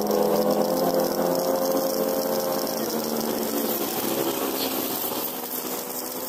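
Air compressor motor running with a steady hum, under the hiss of an INGCO air washing gun spraying a jet of water with compressed air.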